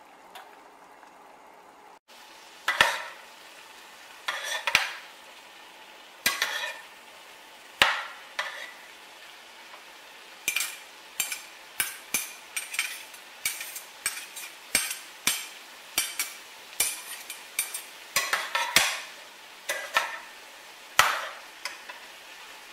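Mixed vegetables sautéing in a stainless steel skillet with a steady sizzle, while metal spoons clink and scrape against the pan as they are stirred and tossed. The clinks come every second or two at first, then more often in the second half.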